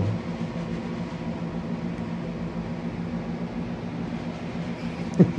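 Steady low mechanical hum, a few even tones held without change, like an appliance or motor running in the room. A brief voice-like sound comes near the end.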